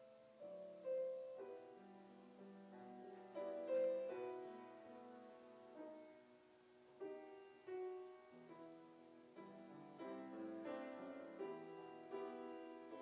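Grand piano played slowly: melody notes over chords, each struck and left to ring, about one or two new notes a second.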